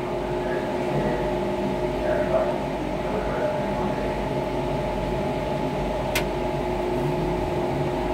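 Gateway Arch tram capsule running on its descent: a steady mechanical hum with a few constant tones, and a single sharp click about six seconds in.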